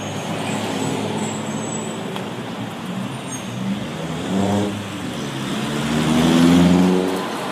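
Street traffic: vehicle engines running close by, with one engine revving up, rising in pitch and loudest about six and a half seconds in.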